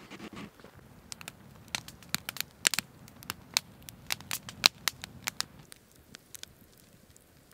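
Wood fire crackling, with sharp irregular pops from the burning logs that thin out about six seconds in.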